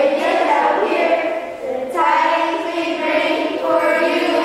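A group of children singing together. One phrase ends about one and a half seconds in, and the next begins about half a second later.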